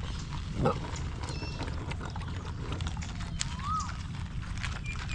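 Puppy lapping water from a plastic bowl: a run of small wet clicks.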